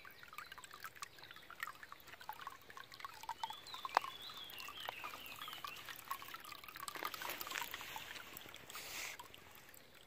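Water welling up through the opening of a rusty bolted iron pipe flange and trickling over it into a shallow concrete basin, with many small drips and splashes and one sharper splash about four seconds in.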